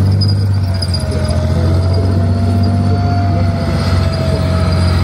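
Challenger 1 tank's Rolls-Royce CV12 V12 diesel engine running as the tank drives past on its tracks, a loud steady low drone with a thin whine over it from about half a second in.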